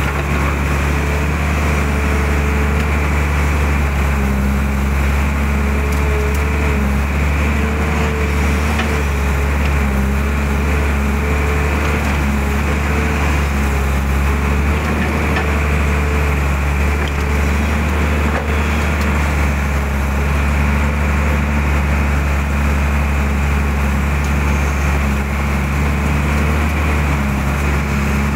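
Mitsubishi excavator's diesel engine running steadily under working load, with a higher tone that comes and goes as the arm and bucket work.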